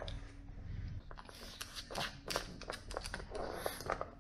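A pug puppy gnawing a hard sinew chew bone, with a rapid, irregular run of clicks and crunches from its teeth on the chew.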